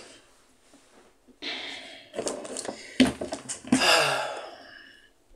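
A person breathing out hard in a few breathy, gasp-like exhales, with a couple of sharp clicks around the middle.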